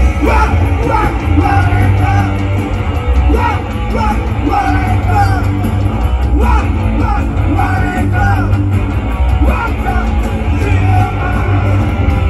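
A punk rock band playing live at deafening volume, a singer shouting and singing over a heavy, bass-laden band.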